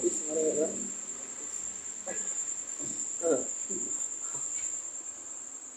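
Crickets trilling steadily in one continuous high-pitched note, with faint voices in the background.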